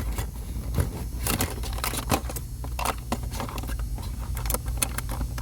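Irregular light clicks, taps and rattles of hands working the brake light switch and its plug connector, over a steady low hum.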